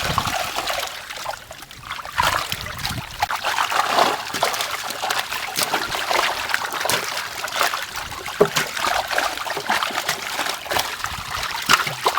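Water splashing and trickling in many quick, irregular splashes.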